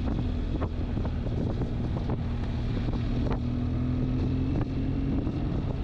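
BMW R1200GS boxer-twin engine running at a steady cruising speed, with wind rushing over the microphone. The engine note eases slightly near the end.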